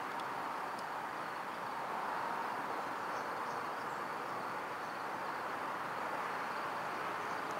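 Faint, steady rumble of an approaching EU07A electric locomotive and its Intercity passenger train, still a long way down the line.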